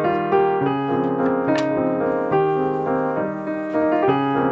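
Background piano music, a continuous run of notes.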